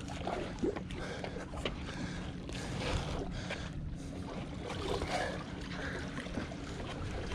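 Steady low rumble of wind on the microphone, with a few faint irregular knocks from footsteps on a wooden dock as a hooked fish is walked along the railing.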